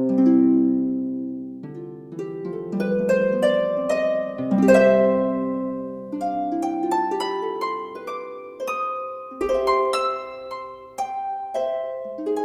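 Background music of plucked-string notes in flowing arpeggios over held low chords.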